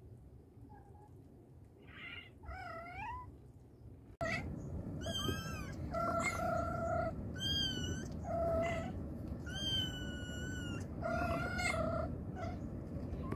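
Mother cat and her young kittens meowing. A few scattered calls, then, after a sudden rise in loudness about four seconds in, a quick run of high-pitched kitten mews one after another, with lower, steadier calls between them.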